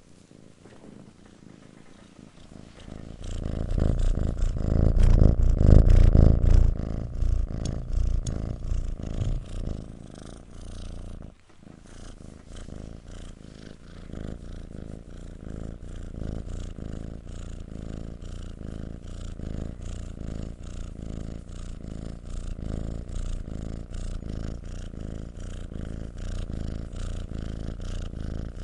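Kitten purring close up, a continuous low, fast-pulsing purr. It is loudest a few seconds in, breaks off for a moment about eleven seconds in, then carries on steadily and a little softer.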